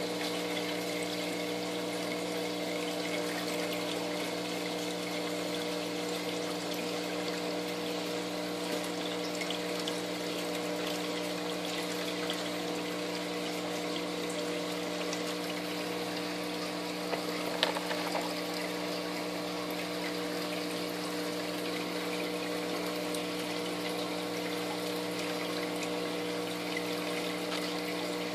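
Aquarium water pump running steadily: a constant low hum with the rush of circulating water. One short sharp tap about two-thirds of the way through.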